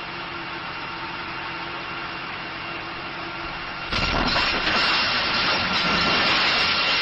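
Domestic gas explosion: a steady hiss with a faint hum, then about four seconds in a sudden blast followed by a loud, dense rush of noise for the next few seconds.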